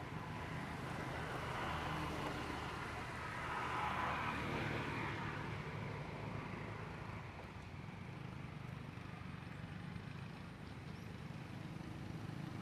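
Distant road traffic: a steady low hum, with one vehicle passing that swells and fades in the first half.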